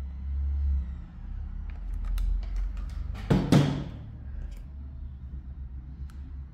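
Handling of a hot glue gun on a table: a few light clicks, then a louder knock about three and a half seconds in as the gun is set down, over a steady low hum.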